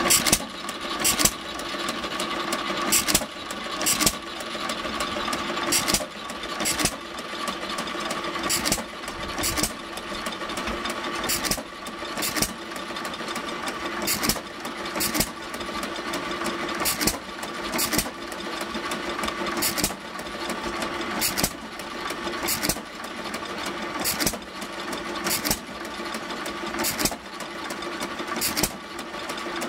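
Arco hit-and-miss gas engine firing on and off, a sharp bang every second or two at uneven gaps as it governs under load. Underneath runs the steady whir of the flat-belt-driven Straub grist mill grinding corn.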